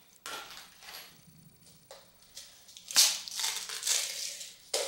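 Handling noise of a small plastic pack of cable crimp ends: short rustles and crinkles, a louder crinkling stretch from about three seconds in, and a sharp click just before the end.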